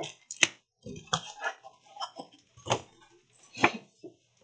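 Cardboard packing being handled and pulled out of a mailer: scraping and rustling with several sharp taps and knocks, the loudest about half a second, two and a half and three and a half seconds in.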